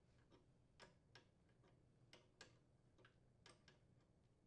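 Faint metallic clicks, several in close pairs about a second apart, of a wrench on the brass fitting as the new water supply tube is tightened onto the refrigerator's water inlet valve port.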